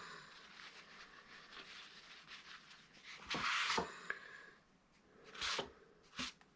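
Quiet rubbing and handling on a wooden cutting board, as paint is wiped from its freshly painted carved logo, with two louder brief swishes and a short click.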